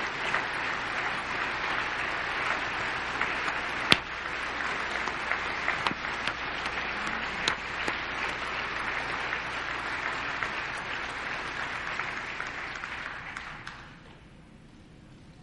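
Audience applauding, with a few sharp individual claps standing out. The applause dies away near the end.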